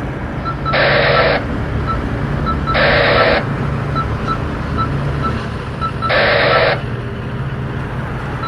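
Three short bursts of two-way radio static, each about half a second long, over the steady low hum of a vehicle engine.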